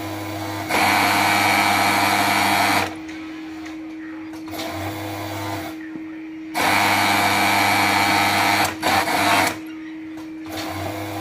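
Jack industrial overlock (serger) sewing machine stitching cotton fabric: two runs of about two seconds each, separated by a pause of a few seconds, then a few short bursts near the end. A steady low hum lies underneath throughout.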